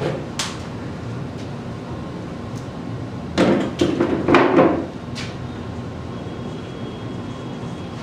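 Marker knocking and scraping on a whiteboard as words are written: a sharp knock near the start, then a cluster of knocks and scrapes between about three and a half and five seconds in.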